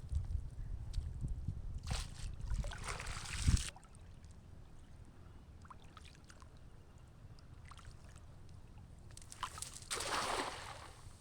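Pond water splashing and sloshing in two bursts, one about two to three and a half seconds in and one about ten seconds in. A low rumble underneath stops suddenly near four seconds.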